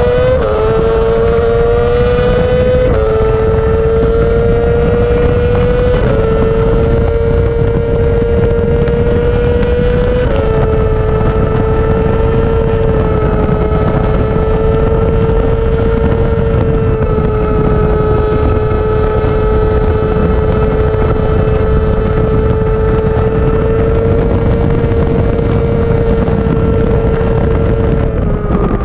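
Yamaha R6 sport bike's inline-four engine at high revs under full throttle, recorded onboard. Three quick upshifts come in the first ten seconds, then the engine holds near flat out in top gear over a heavy rush of wind. The revs fall away near the end.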